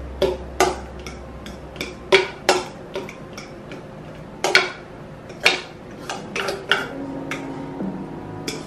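Spoon knocking and scraping against a stainless steel mixing bowl while batter is scraped out into a loaf pan: a string of irregular sharp clinks.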